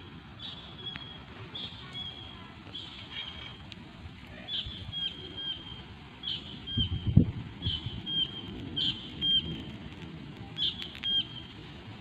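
A wild bird calling over and over, one short call about once a second, over a steady low rush of wind. A dull thump about seven seconds in.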